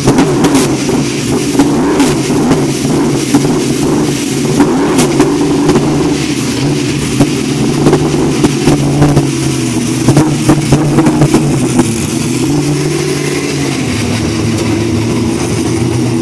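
Holden Commodore V8 Supercar's race V8 running just after start-up, a loud, uneven idle with many sharp cracks over it through the first twelve seconds, settling into a steadier note after that.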